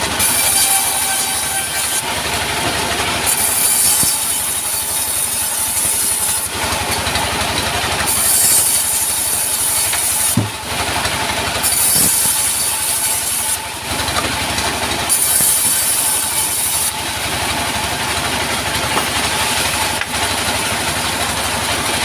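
Diesel engine driving a sawmill band saw, running steadily, with the blade cutting through wood in repeated passes of two to three seconds each, about five cuts, each adding a high hiss over the engine.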